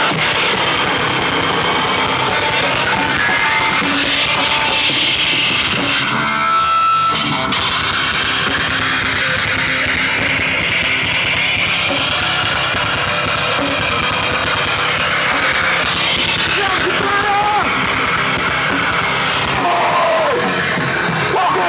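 A post-hardcore rock band playing loud, with guitars over a full band.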